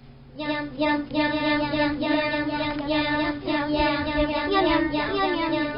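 A child singing a tune, starting about half a second in and holding long, steady notes with small bends in pitch.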